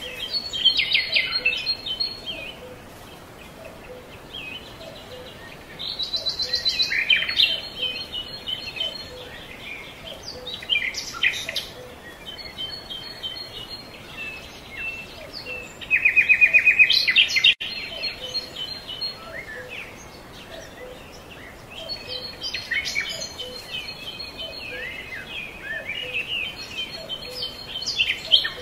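Songbirds singing: repeated chirps, warbled phrases and fast trills. The loudest is a rapid trill about halfway through.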